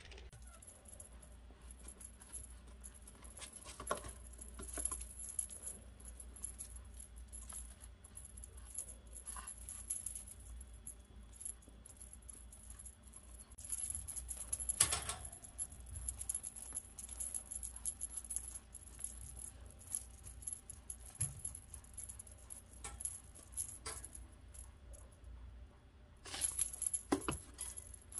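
Small bell on a cat toy jingling on and off as it is dangled and a kitten bats at it, louder in clusters about halfway through and again near the end.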